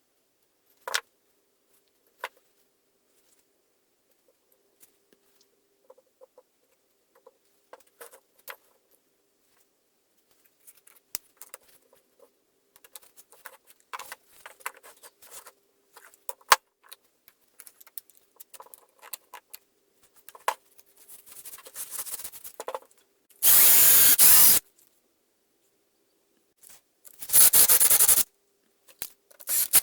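Small clicks and knocks of handling wood and screws, then a cordless drill driver driving screws into the wood in two loud, steady bursts of about a second and a half each near the end, with a third starting right at the close.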